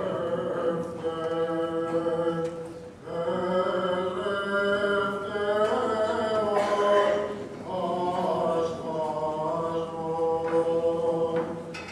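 Unaccompanied Greek Orthodox funeral chant: several voices singing long held notes in phrases, with short breaks between them.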